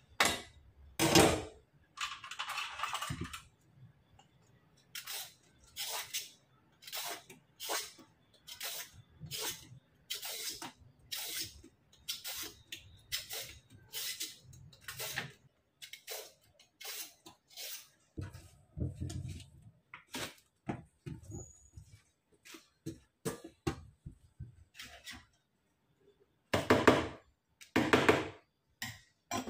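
Loofah (sponge gourd) being peeled with a blade over a stainless steel sink: a long run of short scraping strokes, roughly one or two a second. Louder clattering comes about a second in and again near the end.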